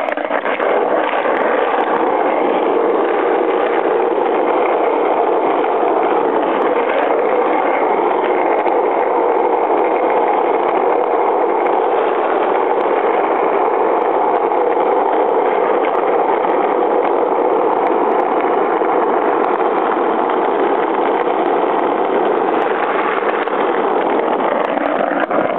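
Longboard wheels rolling over rough asphalt: a steady, loud rumble that holds without a break.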